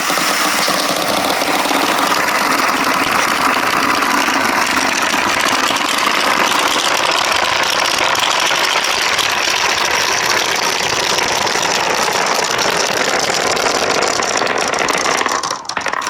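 Many marbles rolling and clattering together down a marble run track in a continuous, even stream, thinning out and stopping near the end.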